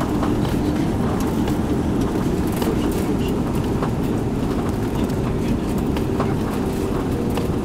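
Cabin noise of a four-engine Airbus A340-600 on its landing roll: a steady loud rumble of engines and wheels on the runway, with scattered rattles and clicks from the cabin.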